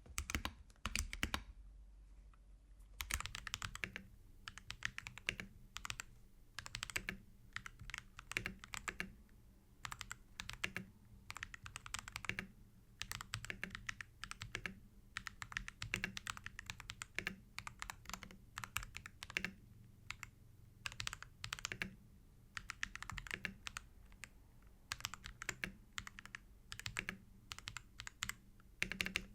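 Typing on a mechanical keyboard with AKKO tactile switches: quick runs of keystrokes in bursts, with a short pause a couple of seconds in.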